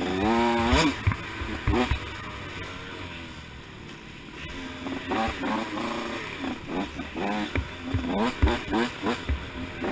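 2012 KTM 85 SX two-stroke dirt bike engine fitted with a big-bore kit, heard from the rider's helmet camera. It revs up sharply in the first second, eases off for a few seconds, then picks up again from about halfway in a string of short throttle bursts, with low thumps mixed in.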